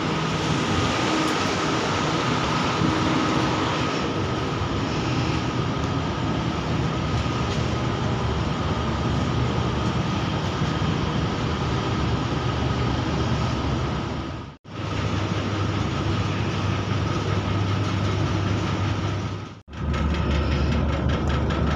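KTMB SkyPark Link electric train running through a station: a steady rumble of the train and rails with a faint steady high whine. The sound breaks off abruptly twice in the second half, where the footage is cut.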